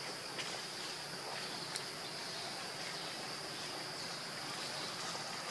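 Insect chorus: a steady, high-pitched drone over an even background hiss, with a few faint ticks.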